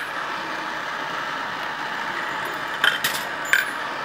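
Steady hiss of two gas torches burning on a rifle-case annealing machine as .308 brass cases are annealed. A light metallic click comes at the very start, and two sharp metallic clinks come near the end.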